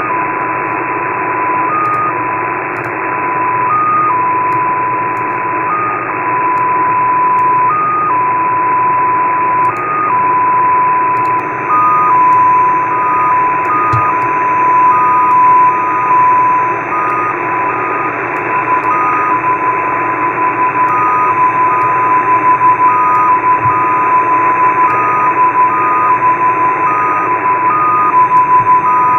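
XPA2 digital number station received on shortwave in upper sideband: a steady tone over receiver hiss, briefly stepping up to a slightly higher tone about every two seconds, then hopping between the two tones more often from about twelve seconds in.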